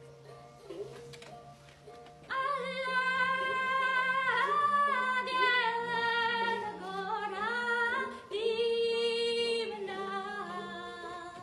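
A woman singing a Sindhi song. Her voice comes in strongly about two seconds in, with long held notes that bend and slide in pitch.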